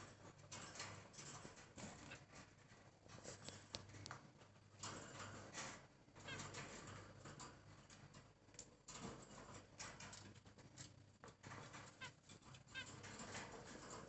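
Faint, busy chirping and chatter of caged budgerigars and a zebra finch, with short calls coming every second or so.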